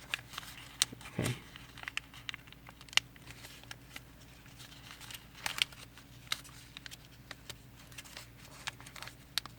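Origami paper being folded and creased by hand: scattered soft crinkles and taps as the sheet is handled.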